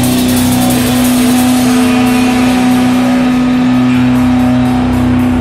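Loud rock music, with one low note held steadily throughout over the band's dense sound.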